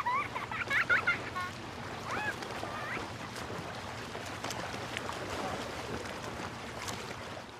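Birds calling with short rising and falling calls, a quick run of them in the first second and a few more about two to three seconds in, over a steady rushing background.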